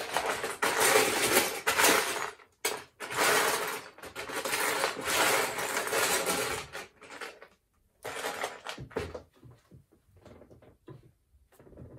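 Loose plastic Lego bricks clattering and rattling as hands rummage through them in a plastic storage bin, in loud bursts with short pauses. The clatter dies down about two-thirds of the way through to scattered single clicks as pieces are picked out and handled.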